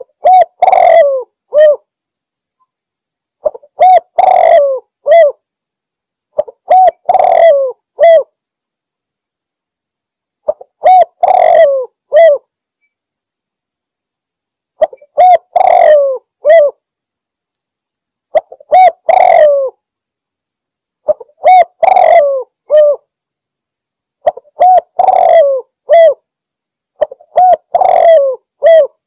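Spotted dove (tekukur) cooing: nine short phrases of several coos each, repeated every three to four seconds with silence between. It is the dove's challenge call, used as a lure to draw rival doves.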